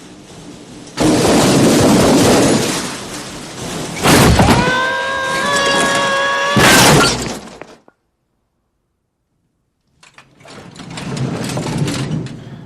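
A heavy metal tool chest crashing and clattering down a staircase, with a held high pitched tone through the middle of the fall. It goes quiet, then a softer rattling crash follows near the end.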